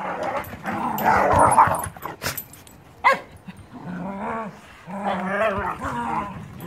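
Dogs growling in rough low grumbles as the adult dogs correct a puppy, with a single sharp bark about three seconds in.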